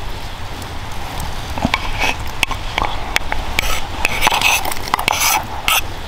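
Wood fire crackling in a fire pit: irregular light crackles and sharper clicks over a low rumble.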